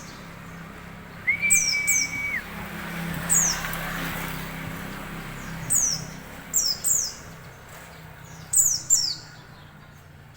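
A white-eye (pleci) calling in short, high-pitched notes that fall steeply in pitch, singly and in quick pairs, about eight times. About a second in, a single flat whistled note is held for about a second, over a faint steady low hum.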